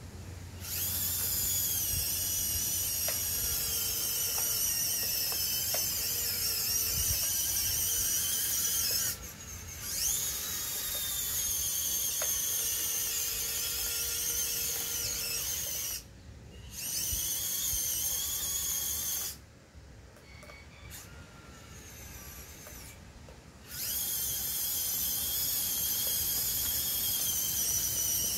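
Small electric motors of an RC-converted Bruder 02467 toy crawler excavator whining at a high pitch as it drives on its tracks, the pitch sliding up and down. The whine stops briefly a few times, once for about four seconds.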